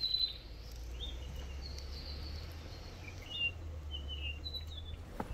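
Birds chirping, about half a dozen short high calls scattered through, over a steady low rumble.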